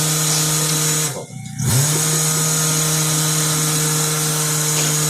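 Electric power grinder running steadily while cleaning corrosion off a wheel. It cuts off about a second in, spins back up with a rising whine half a second later, and runs on.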